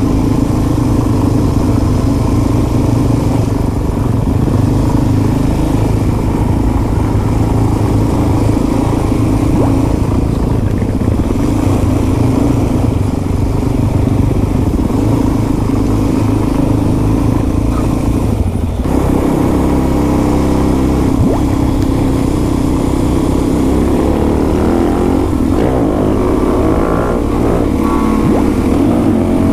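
Dual-sport motorcycle engine running while riding along, loud and steady, with a brief break in the sound about two-thirds of the way through. Near the end the revs rise and fall several times.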